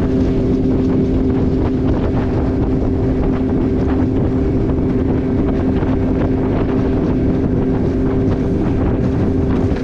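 Motorboat engine running steadily at speed, with heavy wind noise on the microphone.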